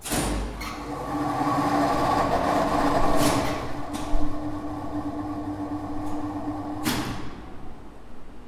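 Two-speed lift traction machine (ZREMB winch with a Celma squirrel-cage motor) switched on with a contactor clack and running with a steady hum and whine. About three and four seconds in, clicks and a thump mark the shift down to low speed, with the braking resistors briefly in series with the motor to soften the braking. A loud clack near the end, then the run dies away as the machine stops.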